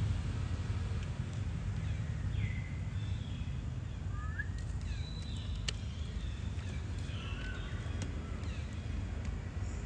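Outdoor ambience: a steady low rumble with a few short, high chirping calls from animals scattered through it, and a couple of faint clicks.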